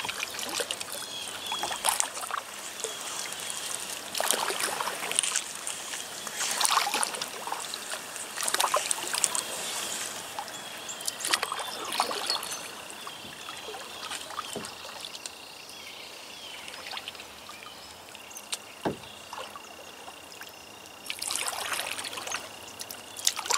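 Kayak paddle strokes in shallow river water: a splashy swish with dripping every second or two, some coming in quick pairs, over a soft background of moving water.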